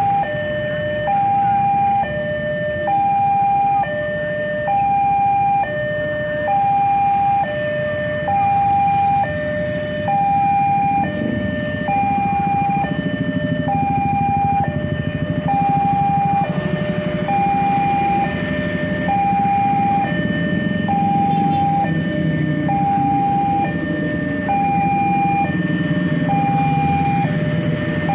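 Railway level crossing warning alarm sounding: a steady electronic two-tone signal, a high and a low note alternating, each held a little under a second, warning that a train is approaching. Under it is the low rumble of motorcycles and cars at the crossing.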